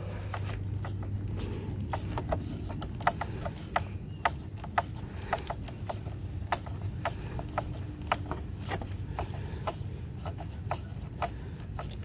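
Hand screwdriver turning cross-head screws into a radiator cooling-fan motor mount on a plastic shroud: irregular sharp clicks and light scraping, a few a second, as the screws are driven in and tightened.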